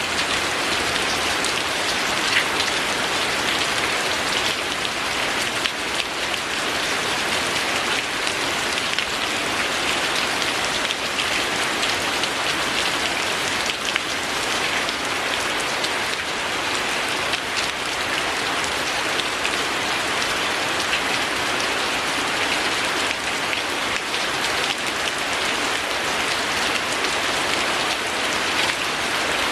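Steady rain falling on a surface, an even patter with scattered faint ticks of individual drops.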